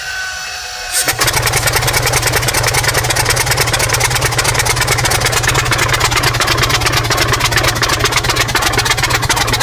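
Soviet V-55 diesel V12 tank engine cranking over, with a fast, even chugging that starts about a second in. The engine is struggling to start, which the crew put down to air in the fuel system.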